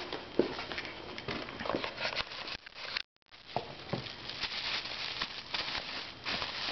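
Cardboard box and clear plastic wrapping rustling and crinkling as they are handled by hand, a continuous run of small crackles and taps. The sound breaks off briefly about three seconds in.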